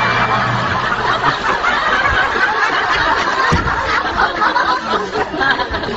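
People snickering and chuckling.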